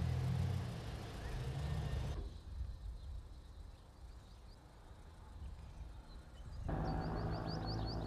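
Outdoor street sound that changes in abrupt cuts. A low vehicle engine rumble is heard at first, then a quieter stretch with faint bird chirps. About two-thirds of the way in, a steady engine hum returns, with a quick run of high bird chirps near the end.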